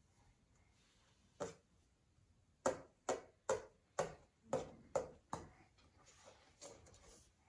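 A baby's hand slapping repeatedly: one sharp pat, then a run of seven quick pats at about two a second, stopping about two-thirds of the way through.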